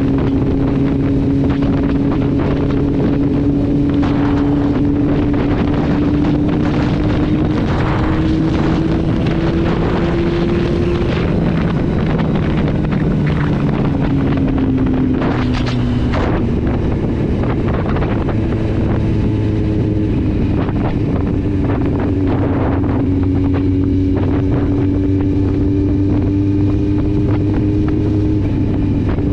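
2010 Kawasaki Z750's inline-four engine running through an Akrapovic exhaust with the dB killer removed, cruising. The engine note climbs gently, dips around the middle as the revs drop, then holds steady again. Wind rushes over the microphone throughout.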